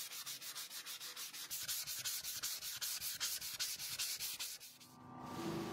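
Sanding sponge rubbed briskly back and forth along a wooden hammer handle, about five even strokes a second. Near the end the rubbing stops and a machine's steady hum starts.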